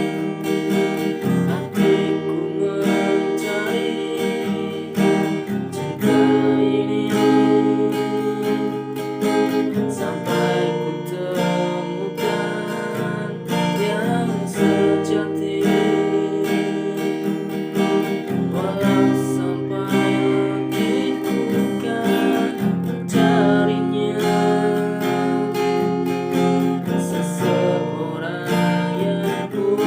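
Acoustic guitar strumming chords, with a voice singing along.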